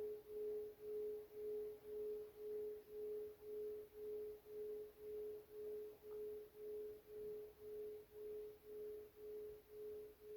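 A bell's long fading hum: one steady tone with a lower tone beneath it, throbbing about twice a second as it slowly dies away.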